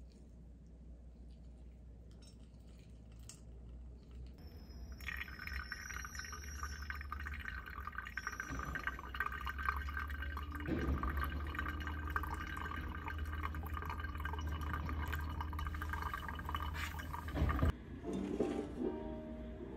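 Hot water poured in a thin stream from a Hario gooseneck kettle onto ground coffee in a pour-over dripper, trickling and splashing steadily. It starts about five seconds in, after a quiet opening, and stops near the end.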